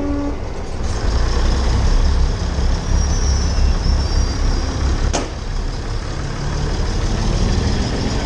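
Diesel multiple-unit railcar idling, a steady low engine rumble, with a single sharp click about five seconds in.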